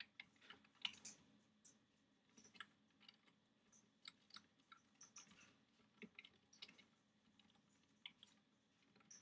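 Computer keyboard typing: faint, irregular keystrokes with short pauses between runs of taps, and a quieter stretch near the end.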